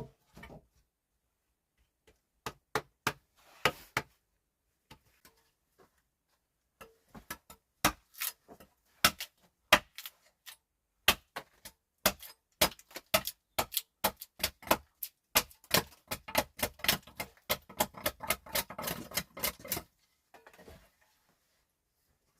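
A series of sharp knocks and clicks: scattered at first, then coming quickly, several a second, for most of the second half before stopping shortly before the end.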